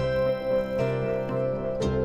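Instrumental background music with sustained notes; a new chord strikes near the end.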